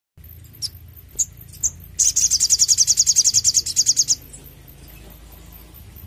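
Male olive-backed sunbird (sogon) singing: a few sharp single high chirps, then about two seconds of a fast, high trill of evenly repeated notes, roughly ten a second, which is the loudest part.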